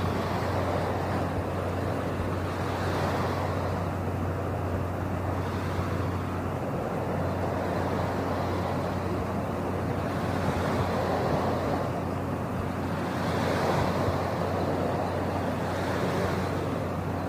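Steady rushing noise over a constant low hum, swelling and easing every few seconds, like waves or wind.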